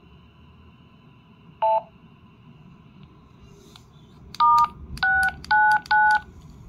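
A short two-tone beep about a second and a half in, then four DTMF keypad tones in quick succession as keys are pressed on a Retevis RT85 handheld radio, keying touch-tone commands to an AllStar node.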